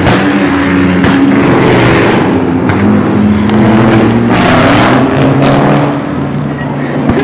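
Car engines revving and accelerating hard, pitch rising and falling several times with sharp surges of exhaust noise, fading somewhat about six seconds in.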